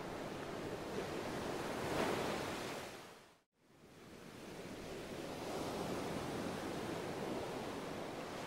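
Steady rushing hiss. It fades to a moment of silence about three and a half seconds in, then comes back.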